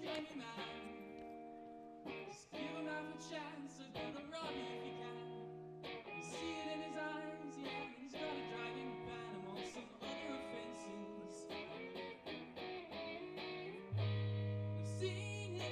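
A band plays a song live, led by guitar: chords are strummed and left to ring, changing about every two seconds, and a heavier low bass note comes in near the end.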